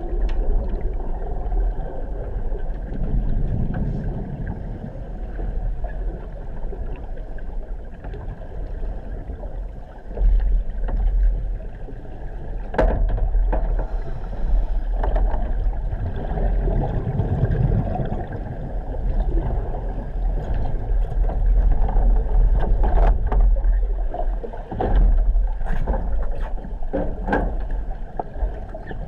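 Underwater sound inside a submerged helicopter egress trainer cabin: a steady low rumble of water with swells of scuba divers' exhaled bubbles. Sharp knocks and clanks of equipment on the cabin's metal frame come a few times about halfway through and in a cluster near the end.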